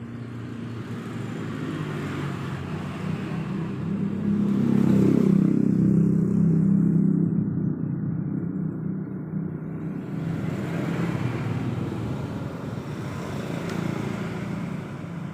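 A motor vehicle engine running, growing louder to a peak about five seconds in and then fading, as if passing by.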